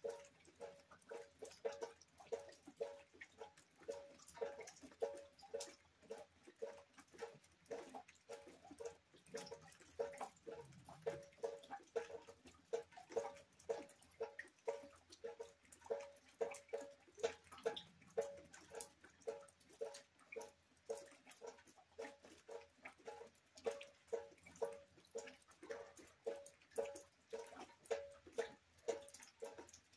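Rainwater dripping into a bucket, steady and slightly uneven at about two drops a second, each a short pitched plink at much the same note.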